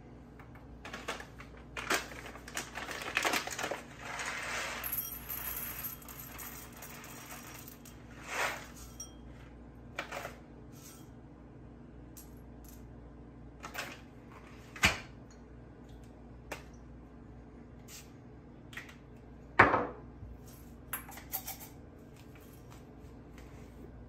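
Small hard objects handled on a counter: a run of separate clicks, clinks and knocks from cups, a bowl and small espresso tools. There is a longer rattle between about two and five seconds in, and the sharpest knock comes near twenty seconds.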